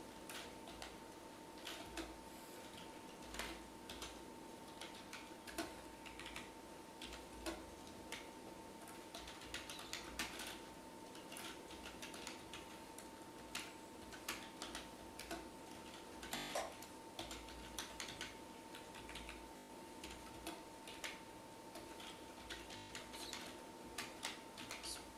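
Computer keyboard typing: irregular, uneven keystrokes and clicks, with a faint steady tone underneath.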